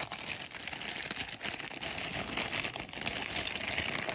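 Packaging crinkling and rustling while a hand digs through a parcel for the next item.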